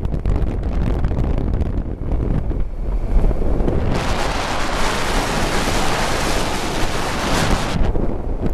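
Wind rushing over the microphone of a moving motorcycle, over a steady low rumble from the Honda Varadero 1000 on a gravel road. About halfway through the wind hiss swells much louder and brighter, then drops back shortly before the end.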